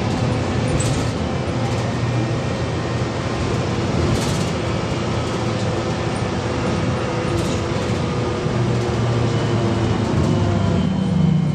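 Cabin noise of a VMZ-5298.01 trolleybus under way: steady running and tyre noise with a faint electric traction-motor whine, and a few sharp clicks and rattles from the body and fittings.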